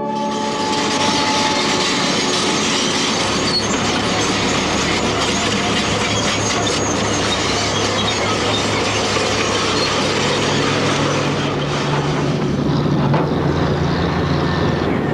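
Strong wind buffeting the microphone of a VHS camcorder, a loud steady rush, over the low, steady drone of heavy machinery that shifts slightly higher in pitch near the end.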